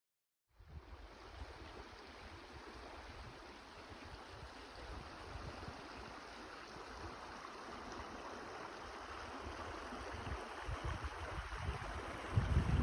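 Wind blowing over the microphone, cutting in about half a second in. It makes a steady rushing hiss with low, irregular buffeting rumbles that grow stronger, with the heaviest gusts near the end.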